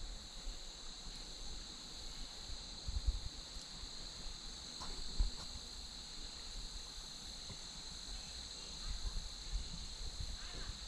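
Steady high-pitched chorus of insects such as crickets, with occasional low thumps.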